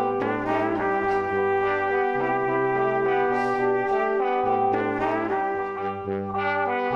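Background music: held chords over a bass line that changes note about every two seconds.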